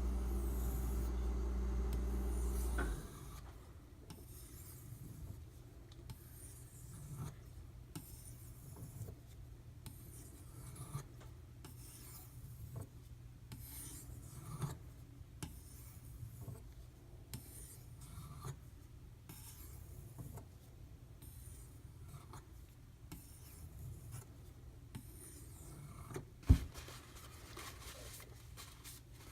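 The 8Cr13MoV steel blade of a Kershaw Crown knife is being stroked back and forth on a wet Imanishi 1k/6k combination water stone, a quiet, soft rasping. A steady low hum cuts off about three seconds in, and a single sharp knock comes near the end.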